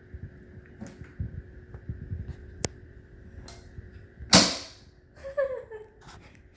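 Handling noises from assembling an electric pressure washer's plastic body: scattered light knocks and clicks, a sharp click, and one loud clack a little past halfway.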